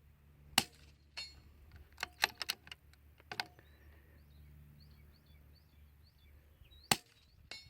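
Suppressed .22LR bolt-action rifle (Anschutz 1712 with an AAC Element 2 suppressor) firing subsonic rounds: two short, sharp shots about six seconds apart, each very quiet for a gunshot. Between them the bolt is worked with a series of light metallic clicks.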